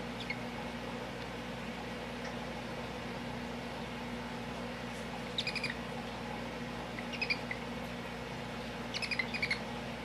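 Pet hedgehog making short, high-pitched chirps in quick little clusters about five seconds in, again around seven seconds, and near the end, over a steady low hum.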